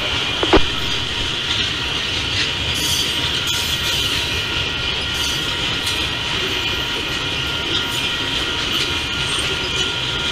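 Freight train of boxcars rolling past at about 35 mph: a steady rumble of wheels on the rails with a high hiss, and a few sharp clicks over the rail joints, one of the loudest about half a second in.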